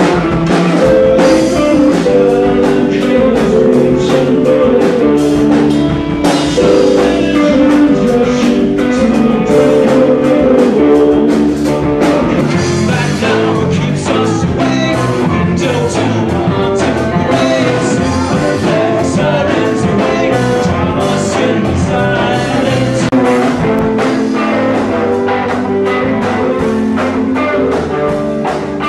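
Indie rock band playing a song, with electric guitars and a drum kit.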